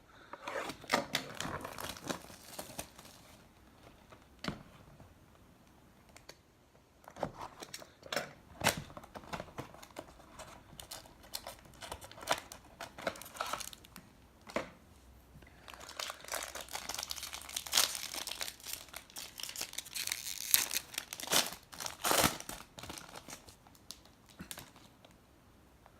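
Plastic wrapping crinkling and tearing as a sealed trading-card box and its packs are opened, with sharp clicks and taps of cardboard and cards being handled. The crinkling comes in stretches, heaviest near the start and in the second half.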